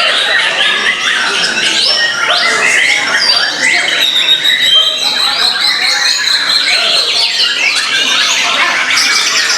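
Several caged white-rumped shamas singing at once, a dense tangle of rapid whistles, trills and chirps, with a long steady high whistle held through the middle few seconds.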